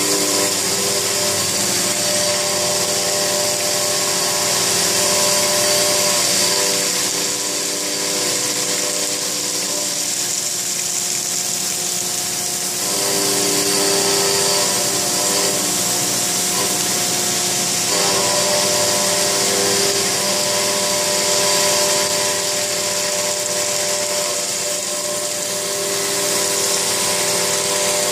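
Robotic milling spindle cutting a stone sculpture under a water-coolant spray: a steady, loud, high-pitched cutting hiss, with a hum of several steady tones underneath that fades and comes back a few times as the tool moves over the work.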